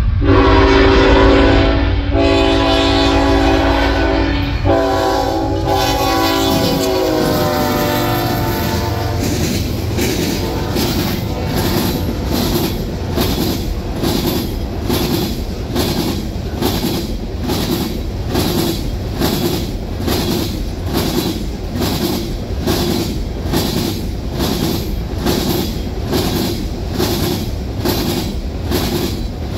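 A CN freight locomotive's air horn sounds a loud chord with short breaks, its pitch falling as the locomotive passes, and stops about nine seconds in. Then the train's tank cars roll by with a low rumble and a steady clickety-clack of wheels over the track, about three clicks every two seconds.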